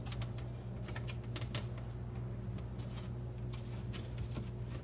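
Scattered light clicks and taps of plastic latches and a glass panel being handled as the glass is worked out of a microwave door, over a steady low hum.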